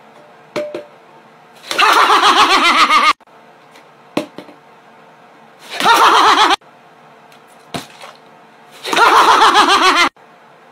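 A man's loud, warbling laugh in three short bursts that start and cut off abruptly, with a light tap sounding between bursts.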